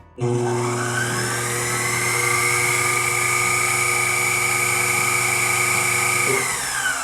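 Sherline Accu-Pro Turn CNC lathe spindle motor starting up with a whine that rises in pitch over the first second or two, then runs steady. Near the end it winds down in pitch as the spindle speed drops under G96 constant surface speed.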